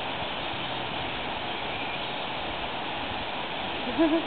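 Steady, even rushing background noise, with a brief two-note pitched sound near the end.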